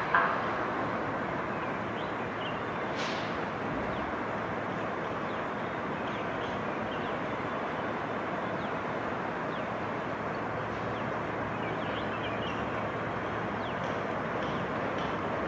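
Two distant EMD WDG-4 diesel locomotives running light toward the listener: a steady, even engine rumble, with a few faint bird chirps over it.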